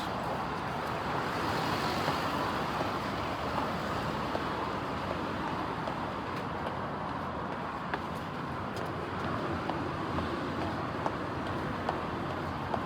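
Steady traffic noise from passing vehicles, with a few faint ticks.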